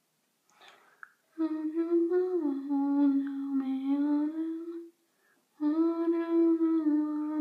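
A girl humming a tune to herself in two long phrases, holding notes that step up and down in pitch.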